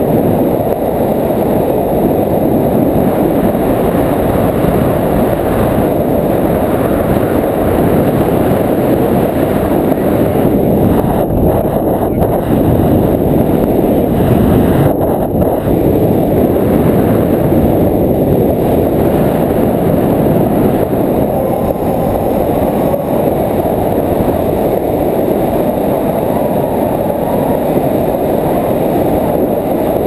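Wind of the paraglider's flight buffeting an action camera's microphone held out on a selfie stick: a loud, steady, deep rush with no break.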